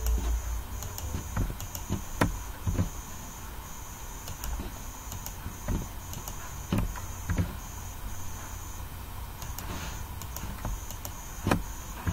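Computer mouse clicks and keyboard key taps, about a dozen at irregular intervals, over a steady electrical hum and a faint high tone that pulses on and off.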